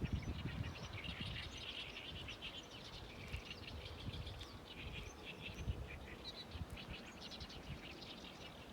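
Many small birds chirping together in a dense, continuous chorus of short, high, overlapping calls.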